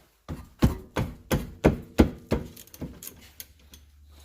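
Steel hand tool working on a 14 mm rear brake caliper bolt: a run of sharp metallic knocks, about three a second, each ringing briefly, growing fainter after about three seconds.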